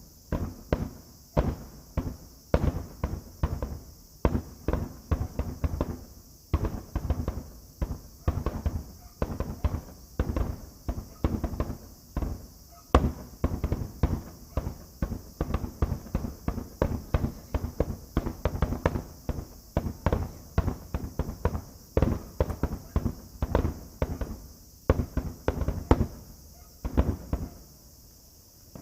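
Fireworks finale: a rapid barrage of aerial shell bursts, several booms a second with no pause, thinning out just before the end.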